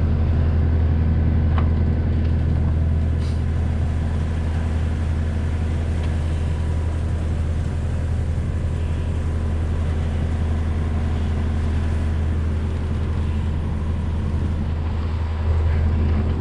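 A sailboat's engine running steadily under way: an even low drone that holds the same pitch throughout, with a couple of faint clicks.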